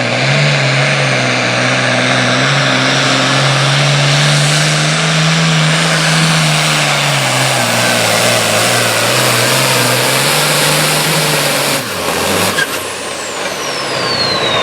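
Super farm pulling tractor's turbocharged diesel engine run hard and steady for about twelve seconds, then the throttle is cut: the engine note drops and the turbocharger whistles as it spools down.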